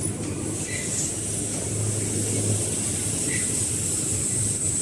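Fully automatic headband KN95 mask machine running: a steady low hum under a constant high hiss, with a couple of faint short chirps.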